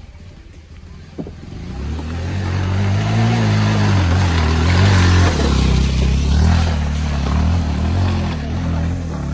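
TVS Apache RTR 200's single-cylinder engine revving under load as the motorcycle pulls up a muddy, rocky track. It swells in about a second in, then rises and falls in pitch with the throttle, and eases a little near the end.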